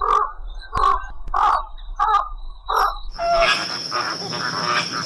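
A series of short, harsh animal calls, about one every half second. A little over three seconds in, the sound cuts to a different recording: a steady high-pitched whine with a rapid chatter of calls.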